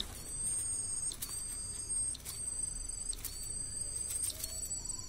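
Light scattered clicks and scratches, about one a second, from a young common swift being hand-fed in a cardboard box, over a steady high-pitched whine.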